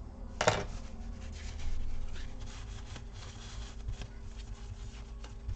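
A sharp click about half a second in, then hands rubbing and handling the opened laptop's chassis.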